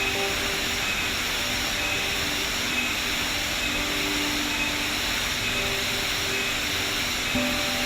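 Steady rush of a waterfall's cascading water, with soft sustained notes of background music over it.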